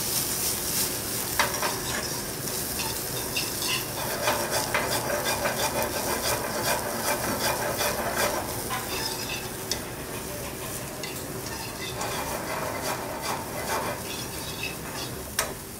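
Broccoli florets sizzling in hot oil in a metal sauté pan, with metal tongs scraping and clicking against the pan as they are tossed, left very crisp.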